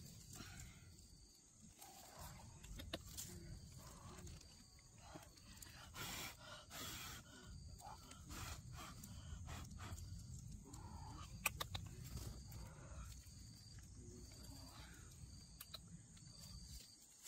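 Faint rustling and small clicks of hands picking and handling a wild mushroom on leaf litter, over quiet forest ambience with a faint high chirp repeating about once a second.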